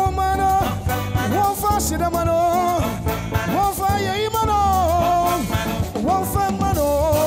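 Live band playing up-tempo gospel music, with trumpet and a male lead vocal over a steady bass beat.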